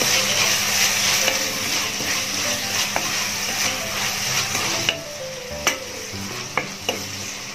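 Chopped onion, grated carrot and green chillies sizzling in hot oil in a wok as they sauté, stirred with a wooden spatula that scrapes and knocks against the pan several times. The sizzle is louder for the first five seconds or so, then quieter.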